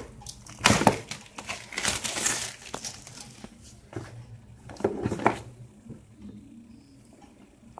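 Plastic wrapping crinkling in three bursts, about half a second in, around two seconds and around five seconds, as a smartphone's cardboard retail box is handled and turned over, with a few light taps in between.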